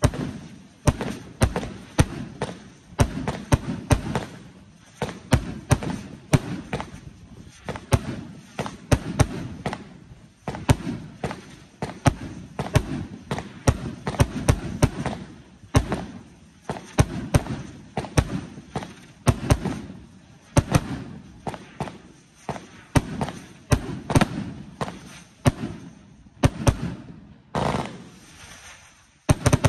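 Black Scorpion 1.4G consumer firework cake firing in rapid succession. Sharp launch thumps and bangs come about two a second. They thin out a few seconds before the end, then one last shot goes off.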